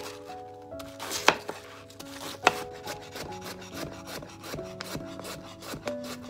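Large kitchen knife chopping on a wooden cutting board: a few heavy single cuts through a cabbage, then from about halfway a quick, even run of strokes slicing carrot, about four a second. Soft piano music plays underneath.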